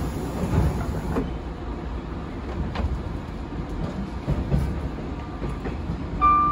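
JR 185 series electric train running on the rails: a steady low rumble with occasional short knocks.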